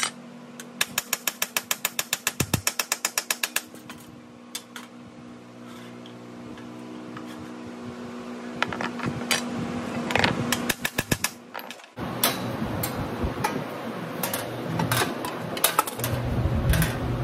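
Rapid hammer blows on sheet steel over a post dolly, a quick run of about seven strikes a second, then scattered knocks and another burst of strikes later, over a steady low hum. The blows stretch an edge of the panel that was shrunk a little too far.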